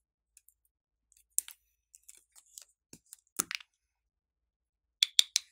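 Sharp plastic clicks and taps as a hollow plastic toy ball is handled, pried open and its contents tipped out. The sounds come scattered, with three quick sharp clicks close together near the end.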